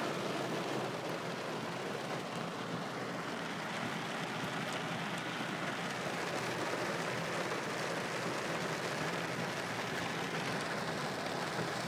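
Steady hiss of heavy rain and tyres moving through water on a flooded road, heard from inside a moving car.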